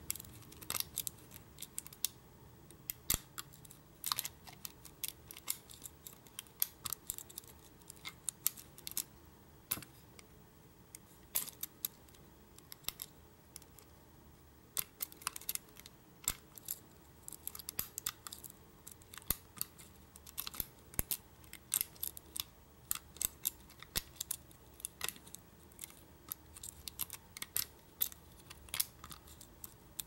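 Small, irregular metal clicks and ticks of a hook pick lifting and raking the pins inside a Schlage deadbolt's pin-tumbler cylinder while a tension wrench holds the plug, at times several clicks a second.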